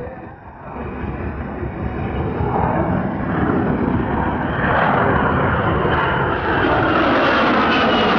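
Lockheed Martin F-35B jet roar in short-takeoff/vertical-landing mode, with the lift fan and nozzle doors open, growing steadily louder as the aircraft approaches, then holding at a loud, even roar through the second half.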